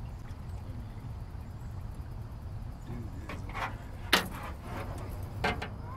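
A few sharp knocks and clatters, the loudest a little after four seconds in, over a low steady rumble.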